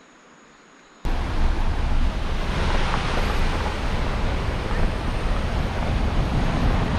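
Faint insect buzz, then about a second in a sudden loud, steady rushing noise with a heavy, buffeting low rumble: wind blowing across the microphone.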